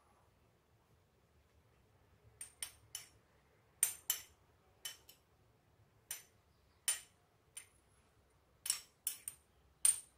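Small metal fork or spoon clinking against a ceramic bowl while picking up food: about a dozen short, bright clinks at irregular intervals, starting about two seconds in.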